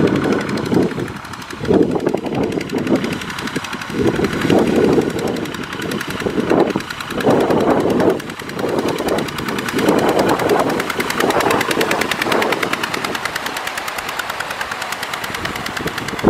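Kubota RT120 walking tractor's single-cylinder diesel running with a rapid chugging exhaust as it pulls a loaded trailer. Its wheels churn and splash through mud and water in surges.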